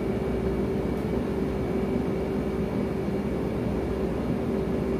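Old air conditioner running with a steady buzzing hum: one held tone over a low rumble.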